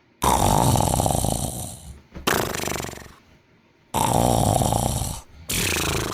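A man snoring loudly: four rattling snore breaths, coming in two pairs, each a second or two long with short silent pauses between.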